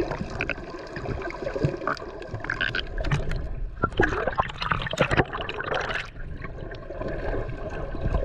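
Water gurgling and sloshing close to the microphone, with scattered short clicks and knocks throughout.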